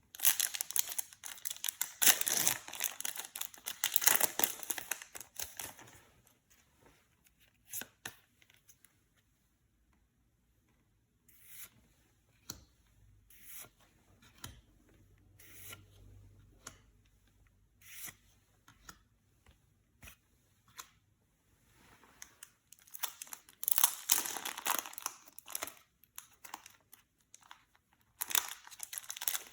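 Yu-Gi-Oh booster pack wrappers being torn open and crinkled in two loud spells, one at the start and one near the end, with scattered soft taps and clicks of card handling between them.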